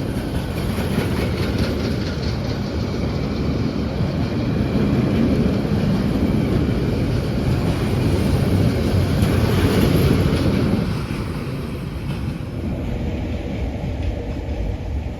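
A Bangladesh Railway passenger express train running past, with the steady noise of its wheels on the rails. It grows louder about four seconds in and eases off somewhat near eleven seconds.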